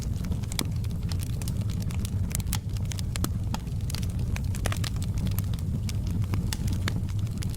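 Wood fire in a fireplace crackling, with many sharp pops and snaps over a steady low rumble of the flames.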